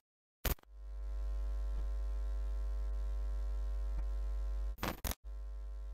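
A steady, low synthetic buzzing drone from a video intro, fading in after a click about half a second in. It breaks off with a couple of clicks near the five-second mark, then returns a little quieter.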